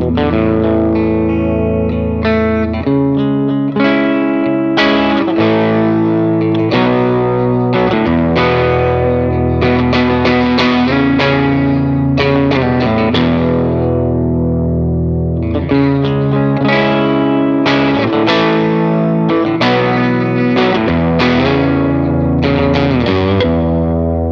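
Electric guitar played through a homebuilt TubeTown JTM45, a kit valve amplifier modelled on the Marshall JTM45, fitted with a post-phase-inverter master volume and a mod to tame the treble. The guitar strums chords that ring out; about halfway through, one chord is left to decay before the strumming resumes.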